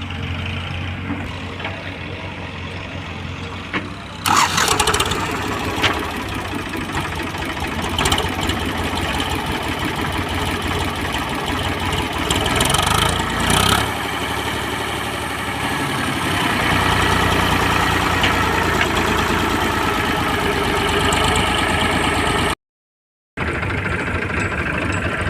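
Diesel engines of a JCB 3DX backhoe loader and farm tractors running. The level jumps suddenly about four seconds in, a few short knocks follow, and the sound cuts out for a moment near the end.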